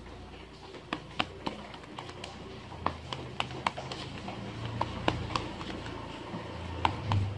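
Tarot deck being shuffled by hand, the cards giving off scattered sharp clicks and taps at an uneven pace.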